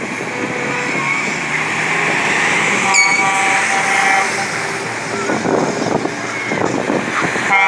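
Lorries passing close by at low speed, their diesel engines running, with a truck horn blowing for about a second and a half about three seconds in. Another horn starts right at the end.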